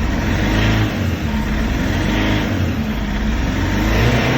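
Renault Master's 2.5 dCi four-cylinder diesel engine revved up and dropping back, three times. The engine has developed a miss, which the owner suspects may be a sensor.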